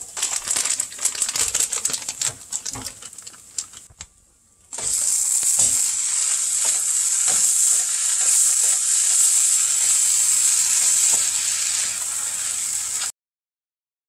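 Breakfast hash sizzling in a hot skillet: crackling as shredded cheese is scattered over it, then a steady high sizzle with the knocks and scrapes of a spatula stirring through the pan. The sound cuts off suddenly about a second before the end.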